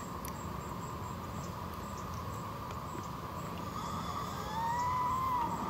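Steady background hum with faint, evenly spaced high ticking, and near the end one slurred whistle-like call that rises and then falls.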